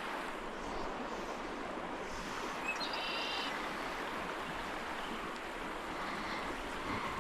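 Steady rushing of a flowing trout stream, with a short high chirp about three seconds in.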